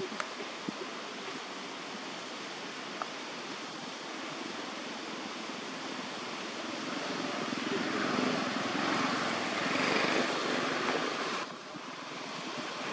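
Steady outdoor background noise, a rushing hiss that swells over a few seconds and drops off abruptly near the end.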